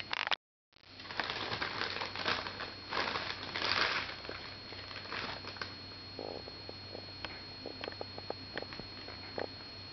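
Guinea pigs chewing endive close to the microphone: a dense crinkly crunching for a few seconds, then scattered small sharp clicks of chewing. The sound drops out completely for a moment just after the start.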